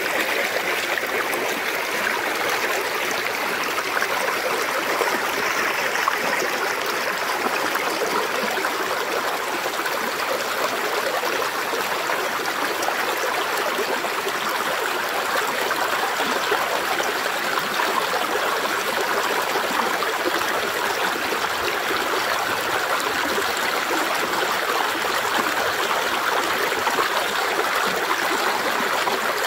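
Shallow river water flowing and babbling over stones and a line of boulders, a steady, even rush of water.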